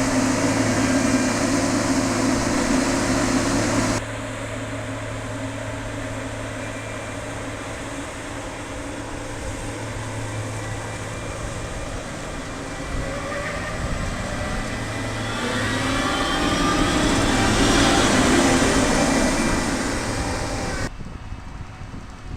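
Engines of corn-harvest field machinery running with a steady drone. The sound changes abruptly about 4 s in and again near the end. In between it swells louder, with shifting whines, in the second half.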